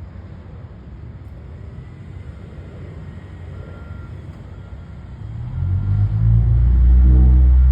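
Low engine rumble of heavy road-construction machinery. It is fairly quiet at first, then swells to a loud, deep engine note about five and a half seconds in.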